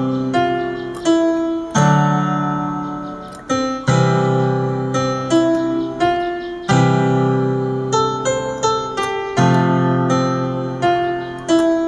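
Electronic keyboard playing a slow song melody in a piano voice over held chords, with a new note or chord struck every second or so and each one dying away.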